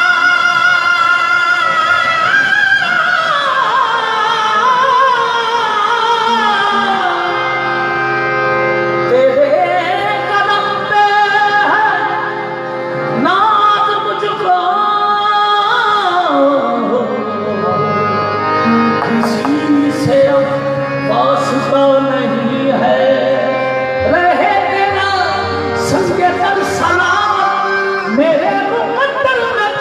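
Qawwali: a male lead voice sings long, ornamented phrases that slide up and down in pitch over steady held accompaniment notes, with a few sharp taps in the second half.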